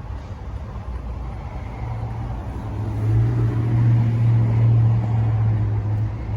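A vehicle engine's low rumble with a steady hum that swells about two seconds in and falls away near the end.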